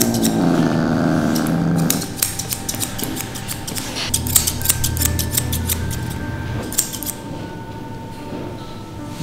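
Grooming scissors snipping through a Persian cat's long fur in quick runs of crisp cuts with short pauses between, the last run about seven seconds in.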